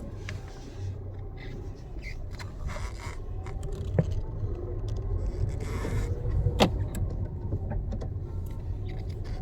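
Tata Altroz moving in first gear, heard from inside the cabin: a steady low engine and road rumble. Two sharp clicks from the cabin, about four seconds in and again a little past six and a half seconds.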